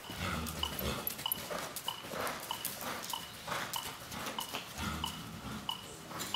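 Metronome beeping steadily about one and a half times a second, a short clean double-pitched beep on each beat at a canter tempo, with a few short animal calls among the beeps.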